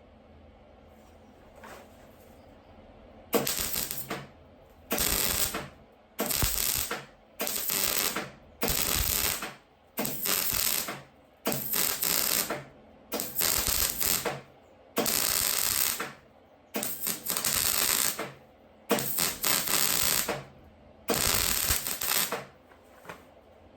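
Welder laying a seam on car-body sheet steel in about a dozen short bursts of crackling arc, each under a second with short pauses between, starting a few seconds in.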